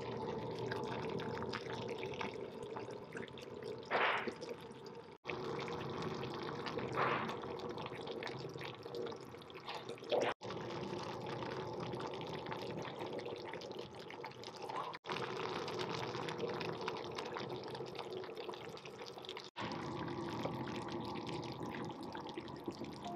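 Stew bubbling as it simmers in a cast-iron pot, a steady wet bubbling with a few louder pops. It drops out for an instant three or four times.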